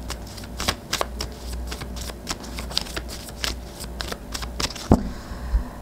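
A deck of animal oracle cards being shuffled by hand: a run of quick, irregular card clicks and flicks, with one louder snap about five seconds in.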